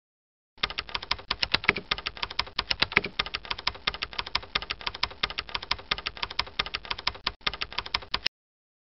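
Computer keyboard typing sound effect: rapid, even key clicks that start about half a second in and cut off suddenly near the end.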